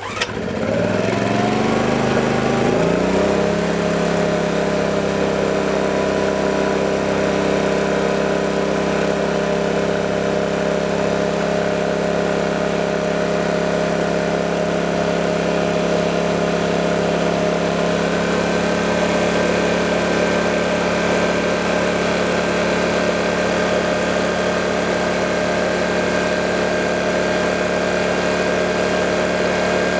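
Honda EX800 portable generator's small petrol engine catching on a recoil pull-start and speeding up over about three seconds, then running at a steady speed. It is a cold start after sitting unused for about six months.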